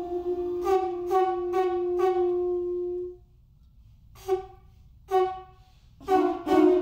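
Conch shell trumpets blown by an ensemble. One holds a steady low note while four short blasts sound over it; both stop about three seconds in. Two single short blasts break the pause, and several shells come in together with rapid pulsing blasts near the end.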